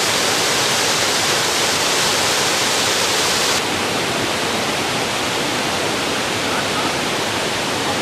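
Steady rushing of water tumbling down a tiered waterfall cascade. A little over three seconds in it drops slightly and turns less bright.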